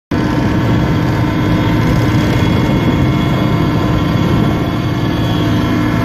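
Firefighting helicopter in flight, heard from on board: steady, loud engine and rotor noise with many held tones over a low rumble.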